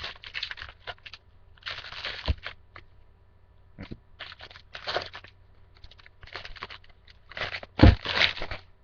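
Foil wrapper of a baseball card pack crinkling and tearing in irregular bursts as the pack and its cards are handled. There is a short low thump about two seconds in and a louder one near the end.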